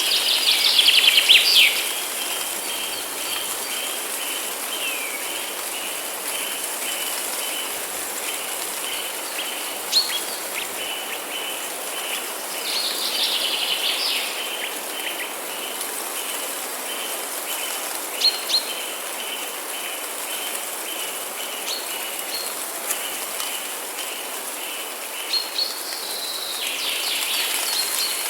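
Forest birds singing in short trilled phrases near the start, around the middle and near the end, with single sharp chirps in between. Underneath runs a steady hiss and a continuous high, even tone.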